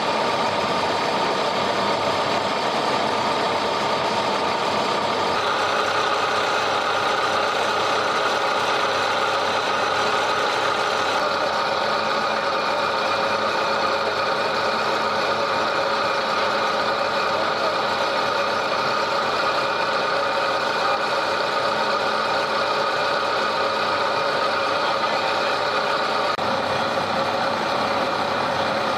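Heavy diesel construction machinery running steadily, its engine tone shifting slightly about five seconds in and again around eleven seconds in.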